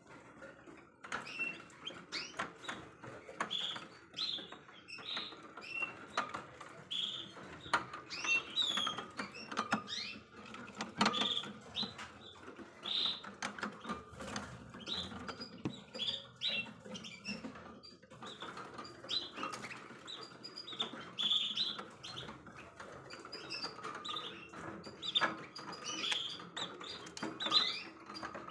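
Many domestic canaries in wire cages chirping with short call notes that overlap throughout, with scattered light clicks and wing flutters as they hop about.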